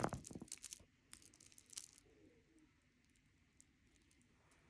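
Faint clicks and light rustling of bead necklaces being handled, a scatter of small clicks in the first two seconds, then near quiet.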